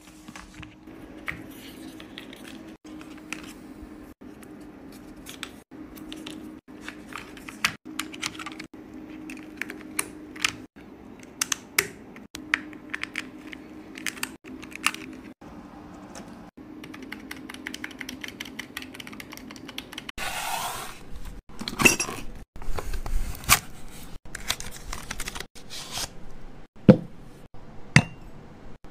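Close handling sounds of unboxing: a run of small clicks, taps and paper rustles from a boxed pink wireless keyboard and its USB receiver being pulled from its slot, over a faint steady low hum. Near the end come louder, sharper clinks and knocks of a ceramic mug being handled.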